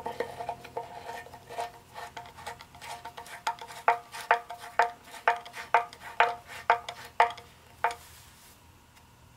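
Flat-blade screwdriver tightening a slotted detent plug into a tractor transmission case: a run of sharp metallic clicks with a short ring, about two a second, stopping about eight seconds in.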